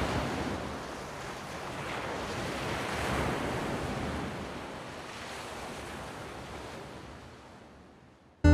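Ocean surf washing onto a sandy beach, a steady rush that swells slightly and then slowly fades away almost to nothing. Right at the end, music starts abruptly with a loud plucked guitar note.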